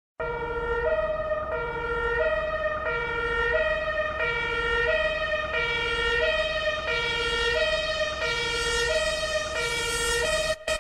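Two-tone police siren alternating steadily between a low and a higher note, each held about two-thirds of a second. It stutters and breaks off near the end.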